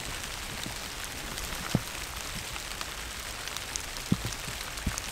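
Steady rain falling, with scattered louder drops ticking singly through it.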